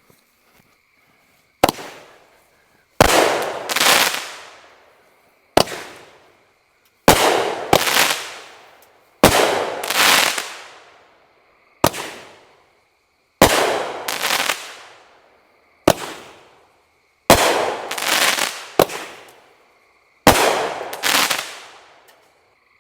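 A Fox Fireworks consumer cake firing six shots. Each shot is a sharp lift thump followed about a second and a half later by a hard-hitting aerial break boom, which fades away over a second or so.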